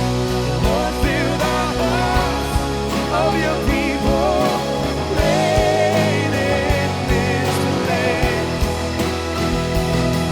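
Worship band playing a rock-style song with drums and sustained chords, with a wavering lead melody line over them.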